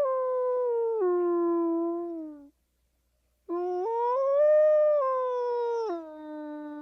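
Gray wolf howling: a long call that falls in steps and fades out about two and a half seconds in, then after a second's pause a second howl that rises and then falls, dropping sharply in pitch near the end.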